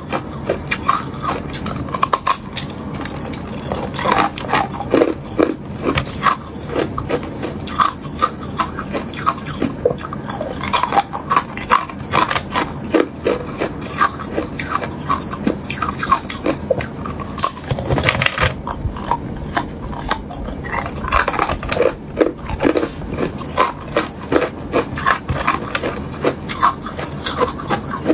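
Hard clear ice being bitten and crunched: chunks snapped off a clump of frozen-together ice cubes and cracked between the teeth, sharp cracks coming irregularly, several every second, with wet mouth sounds between them.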